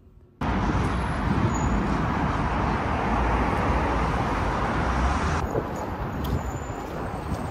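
Steady outdoor city street noise with a traffic rumble, cutting in abruptly about half a second in.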